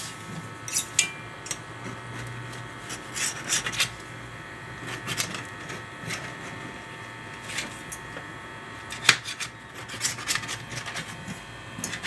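Phyllo (galash) pastry sheets being handled and trimmed to size: papery rustling and scraping in short, irregular bursts, with a few sharper strokes about three-quarters of the way through.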